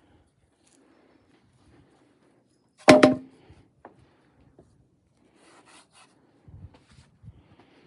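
Cedar boards being handled: one loud wooden knock about three seconds in, ringing briefly, as a board is set down, with quieter scrapes and small taps of wood on wood later.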